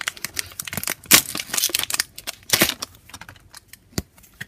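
Foil wrapper of a Pokémon trading card booster pack crinkling and tearing as it is pulled open by hand, a dense run of sharp crackles, followed by sparser clicks and rustles as the cards are handled.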